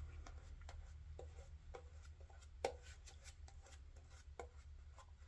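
Faint, short scratchy strokes of a Merkur 34C safety razor over stubble, a few seconds apart. The sharpest tick comes about two and a half seconds in.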